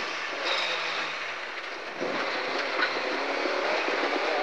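Vauxhall Chevette HSR rally car's four-cylinder engine heard from inside the cabin, with road noise from the gravel surface. The engine eases off about a second in, then comes back on hard at about two seconds and pulls with rising pitch.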